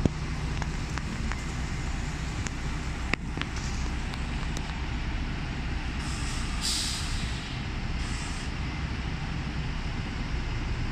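Double-decker diesel buses idling, a steady low engine hum. A sharp hiss of released brake air comes about six and a half seconds in, with softer hisses a few seconds before and about a second after it.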